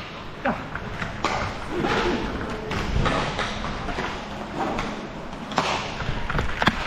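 Ice hockey play at the rink: sticks and puck knocking, thuds, and skates scraping on the ice, with a sharp crack near the end as a shot is fired and blocked.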